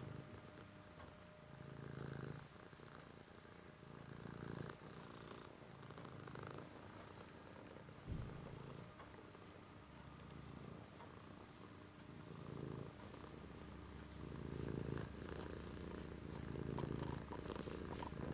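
Domestic cat purring while being stroked, the purr swelling and fading with each breath about every second and a half. A single brief knock about eight seconds in.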